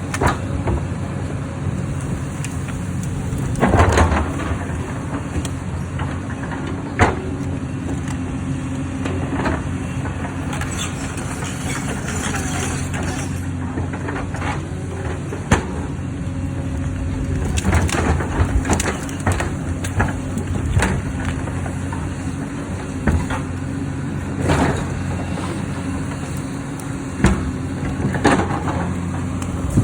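Hyundai excavator's diesel engine running steadily, with repeated sharp knocks and clatter of stone and the bucket, the loudest at about four, seven and fifteen seconds in.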